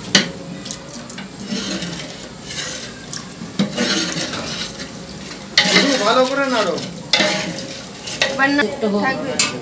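A long metal ladle stirring and scraping a thick, watery vegetable-and-lentil mixture in a large aluminium pot on a gas burner, with a few sharp knocks of metal on the pot. The pot's contents sizzle and bubble on the heat.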